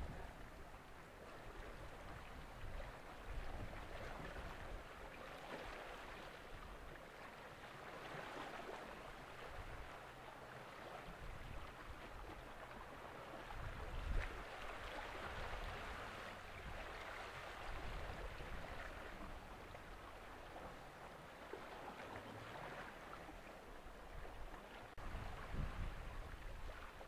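Sea water washing and lapping, a faint wavering hiss, with low gusts of wind on the microphone near the start and near the end.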